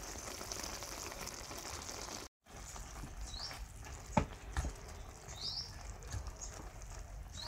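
Vegetable broth simmering in a wok, with a brief drop-out just over two seconds in. Then a metal spatula stirs and knocks against the pan about four seconds in, with a lighter knock just after. Short rising bird chirps sound three times in the background.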